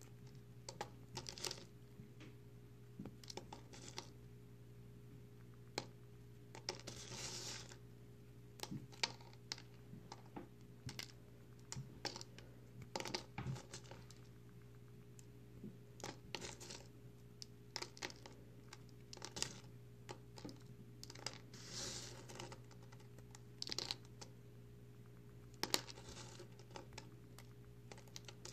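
Dry, crumbly recycled soap pieces crushed and broken between fingertips, giving irregular sharp crackles and crunches, with a few longer crumbling runs.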